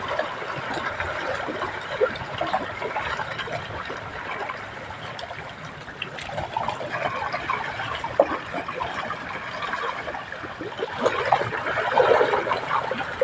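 Water trickling and splashing, with a steady wash and many small irregular splashes.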